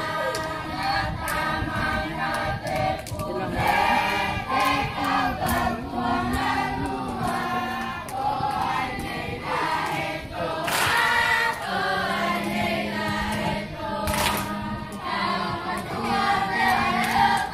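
A group of schoolchildren singing together in chorus, many voices holding long sung notes.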